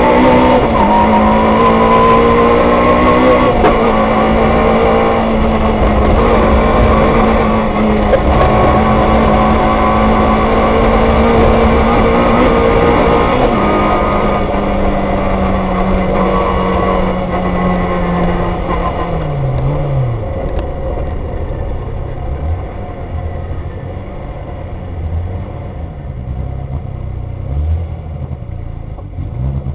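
Peugeot 106 rally car's four-cylinder engine heard from inside the cockpit, pulling hard at high revs. About two-thirds of the way through the revs fall away and the engine drops to a low rumble as the car slows.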